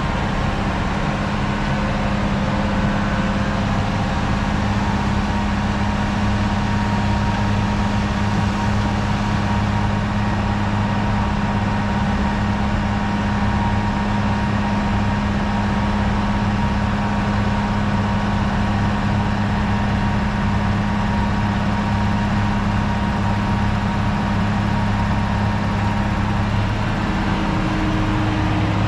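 The diesel engine of a 1997 ABG Titan 273 asphalt paver running steadily with an even, unchanging hum. The hum's pitch shifts slightly near the end.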